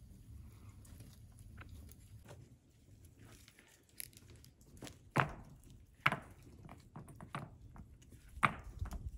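Knife and flat metal kebab skewers knocking and clicking about five times as minced fish is pressed onto the skewers, over a low steady rumble.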